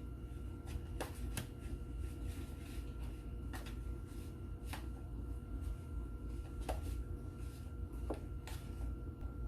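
Steady low hum of a running dishwasher, with a few faint steady tones over it. Scattered light clicks and taps come about seven times through it.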